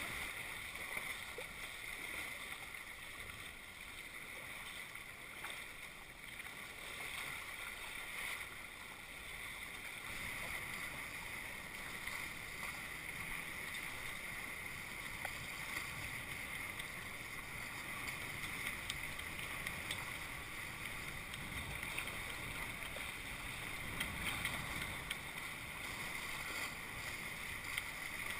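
Steady rush of water and wind as a Tornado catamaran's hull cuts through choppy water under sail.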